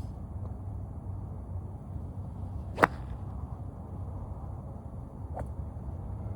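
A golf iron striking a ball, one sharp crack about three seconds in, with a fainter click of another strike near the end, over a steady low rumble.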